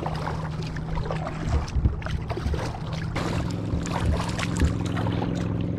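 Kayak paddle strokes: the blades splashing and dripping in the water with small knocks against the hull, over a steady low hum that gains a few higher tones about three seconds in.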